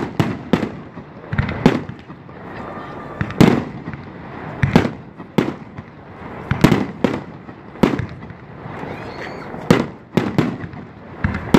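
Fireworks bursting overhead: a rapid string of a dozen or so sharp bangs, irregularly spaced about a second apart, with crackling between them.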